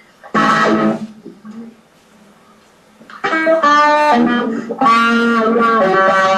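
Electric guitar playing. One strummed chord comes about half a second in, and after a short pause a run of ringing held notes and chords fills the last three seconds or so.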